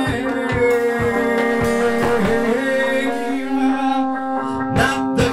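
Music: a song with long held notes over a steady beat of about two strokes a second.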